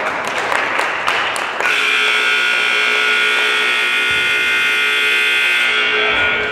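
Gymnasium scoreboard horn sounding one long steady buzz of about five seconds, starting a couple of seconds in: the game clock has run out to 0.0 in the fourth period, ending the game. Before it, a few sharp ball bounces over crowd noise.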